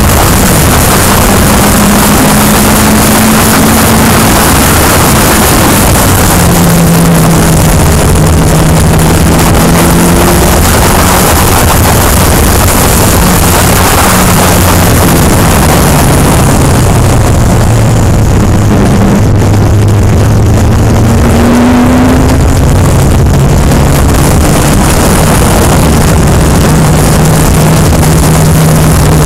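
Open-wheel track car's engine pulling hard around a racetrack, recorded onboard. Its note climbs and drops as the revs change, under a loud rushing noise of wind on the microphone.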